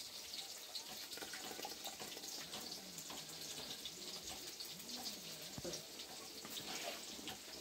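Ground coconut paste being poured into a big aluminium pot of chicken curry gravy, liquid pouring and splashing steadily with small crackles. This is the last step of the gravy, the coconut going in.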